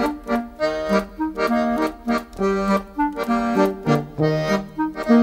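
Accordion music: a quick, lively tune of short, detached notes.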